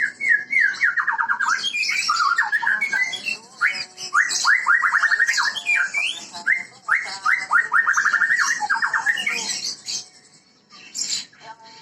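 White-rumped shama of the Medan type singing: fast runs of clear whistled notes that fall in pitch, repeated several times, breaking off about ten seconds in, with a short call near the end.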